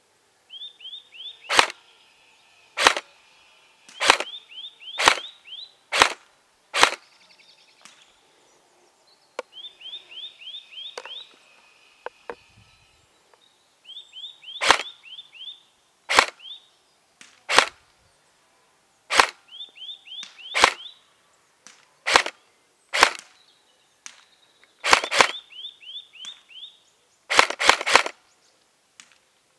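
Single shots from a custom SPR MK12 airsoft electric rifle, about eighteen sharp cracks every one to two seconds with a lull around the middle, fired at a cardboard target some 60 m away. Faint taps of the BBs striking the cardboard may follow some shots. Between shots come short runs of quick, rising high chirps.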